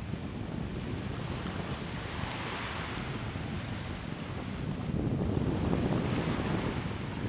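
Small waves washing onto a sandy shore, with wind rumbling on the microphone; the wash swells briefly a couple of seconds in and the wind rumble grows stronger later on.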